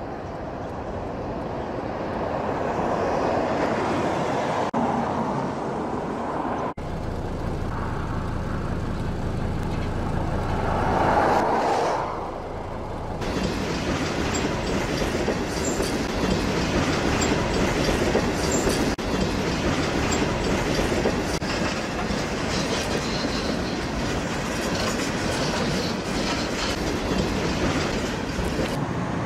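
Freight train of tank cars rolling past close by: a steady noise of steel wheels on the rails, broken by a couple of abrupt cuts.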